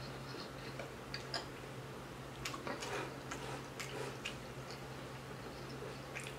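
Faint, scattered wet clicks and smacks of someone eating a loaded hot dog, chewing with the mouth closed and picking at the food with the fingers, over a steady low hum.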